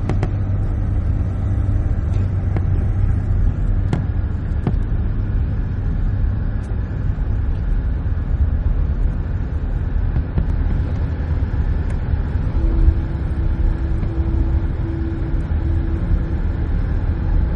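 Steady low rumble with a few faint clicks, and a faint hum coming and going from about two-thirds of the way through.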